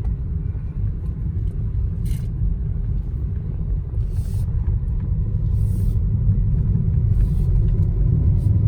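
Car driving on a paved road, heard from inside: a steady low rumble of engine and tyres, with a few brief hissing bursts scattered through.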